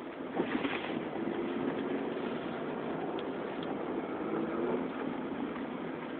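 2005 Chevrolet Monte Carlo LT's 3.8-litre V6 running under way, heard inside the cabin together with steady road and tyre noise.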